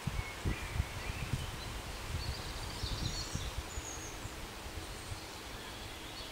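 Outdoor ambience: wind buffeting the microphone in irregular low thumps, densest in the first few seconds, with birds chirping faintly in the background about two to three and a half seconds in.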